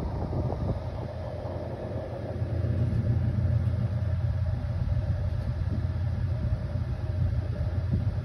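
Steady low rumble of air from an air cooler blowing across the phone's microphone.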